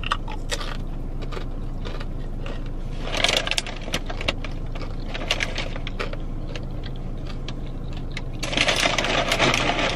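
Close-up eating sounds: chewing and scattered light clicks of a plastic fork in a takeout bowl. A crinkly rustle comes about three seconds in and a longer one in the last second and a half, as she reaches down for chips. A steady low hum of the car cabin runs underneath.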